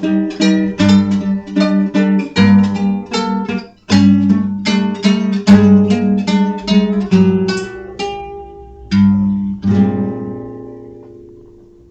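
Acoustic guitar playing a plucked folk passage, ending on a last chord about ten seconds in that rings and fades away.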